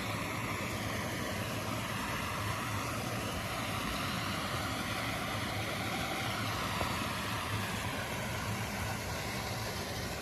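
Small creek cascade tumbling over boulders: a steady rush of water.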